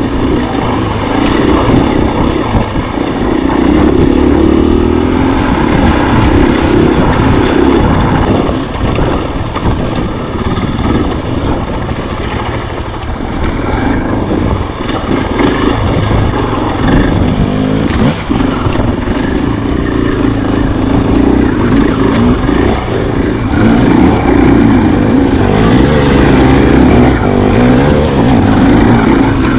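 Dirt bike engine running hard, heard from on the bike, its pitch rising and falling continuously as the throttle is worked along a rough single-track trail.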